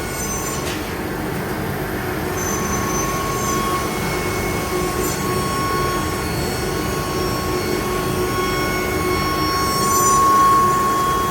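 12-tool automatic-tool-change CNC router running: a steady high whine from the spindle over a continuous rushing noise. It grows a little louder about ten seconds in.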